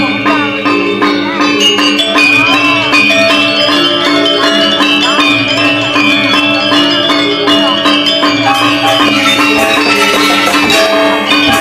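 Balinese gamelan ensemble playing a tabuh kreasi: bronze metallophones and gongs ringing in a dense, continuous texture, with a melody line bending in pitch above them.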